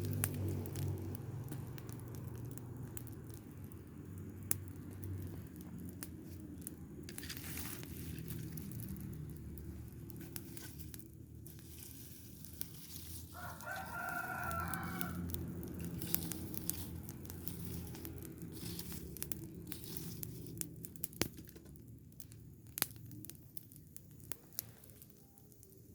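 A rooster crows once, about halfway through, a single call of about a second and a half. Under it run scattered sharp pops and crackles from the rubbish fire and a steady low rumble.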